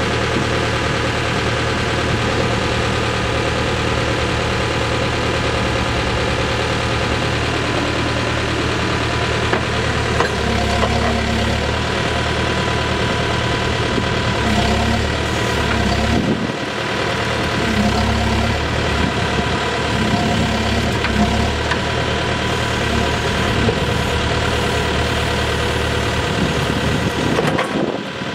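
Diesel engine of a 2012 Case 580N loader backhoe running steadily at idle. From about ten seconds in, its low note shifts and varies as if under changing load, with a brief drop near the end.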